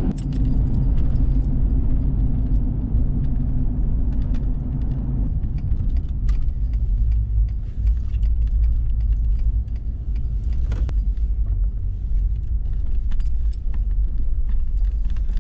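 Engine and road noise inside a moving vehicle's cabin: a steady low rumble with many small rattles and clicks.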